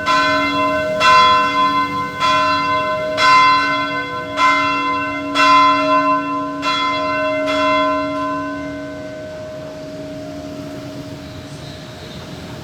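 Church bell tolling, struck about once a second for roughly eight strokes, each ringing over the last; then the strokes stop and the ringing dies away.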